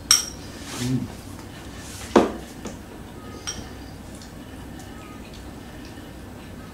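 Spoon clinking against bowls and a plastic food container while eating: a few sharp clinks, a sharp one at the start and the loudest about two seconds in, with fainter clicks after.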